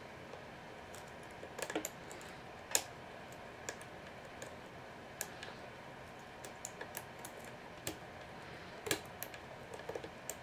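Steel lock pick clicking and scraping against the pins inside a Master Lock No. 570 padlock's keyway while a tension wrench holds the plug: irregular small clicks, the sharpest about a third of the way in and a cluster near the end, over a faint steady hiss.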